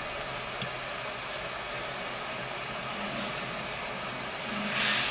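Hot air rework station blowing a steady hiss of air onto a phone motherboard, reflowing the solder under a new charging-port connector. A small tick comes about half a second in, and a short, louder breathy rush near the end.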